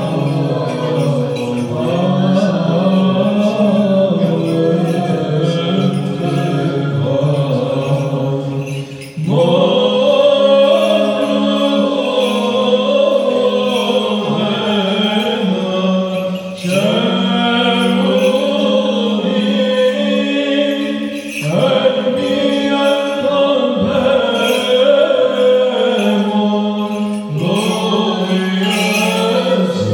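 Orthodox liturgical chant: voices singing a melody over a steady held drone note, in long phrases with short breaks every five to seven seconds.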